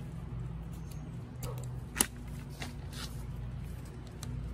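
Plastic tent clips being snapped onto a tent pole by hand: one sharp click about two seconds in, fainter clicks later, and handling noise between.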